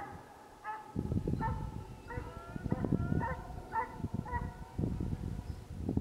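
Russian piebald hound baying on the trail, giving tongue in a run of short, ringing barks about every half second or a little more, which stop near the end. A low rumbling noise runs underneath.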